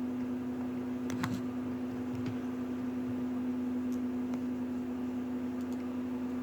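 Steady room hum with a constant low tone, and a few light clicks about a second in and a few more later.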